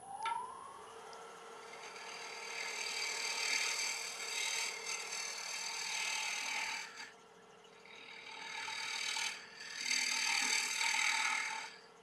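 Wood lathe spinning a damson bowl blank while an Easy Wood Tools Pro Hollower cuts out the inside: a steady hissing scrape of the cut over the lathe's constant hum. The cutting drops away for about a second some seven seconds in, briefly again a little later, and once more near the end, as the tool comes off the wood.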